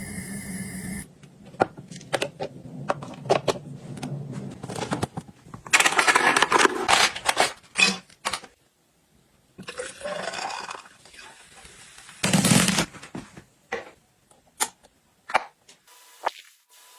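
Kitchen containers and utensils being handled: a run of clicks, knocks and scraping as things are picked up, set down and slid about. About ten seconds in, a pour into a container rises in pitch as it fills.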